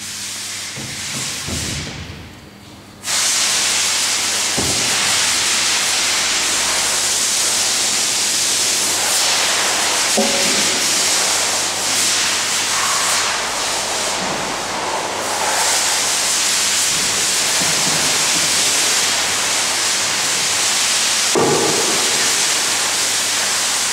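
Solid wood beams knocked and set down on a stacked mock-up, then about three seconds in a loud steady hiss cuts in abruptly and continues, with a few wooden knocks beneath it.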